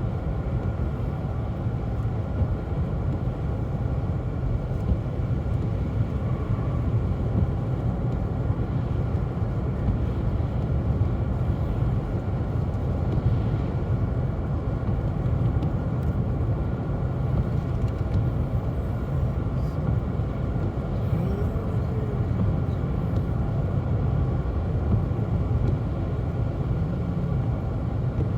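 Steady low rumble of a car driving, engine and tyre noise heard from inside the cabin, with no changes.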